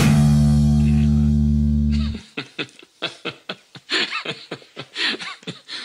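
The final electric guitar and bass chord of a punk song rings out and cuts off sharply about two seconds in. It is followed by short, evenly spaced bursts of a person chuckling.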